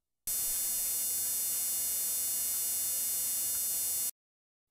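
Steady electrical buzz, a hum with a bright, high edge, unchanging in pitch and level; it starts abruptly just after the start and cuts off abruptly about four seconds in.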